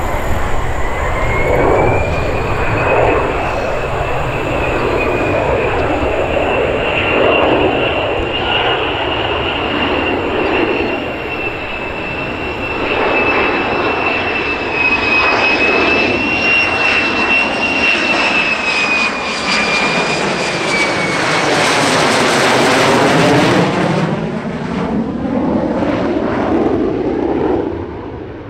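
F-35C Lightning II's single Pratt & Whitney F135 turbofan on approach: a steady high whine over a rumble. It grows to its loudest as the jet passes overhead about 23 seconds in, with a sweeping rush, then fades.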